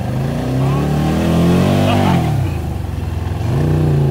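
ATV engine revving up and down as it pushes through swamp grass, its pitch climbing and dropping twice.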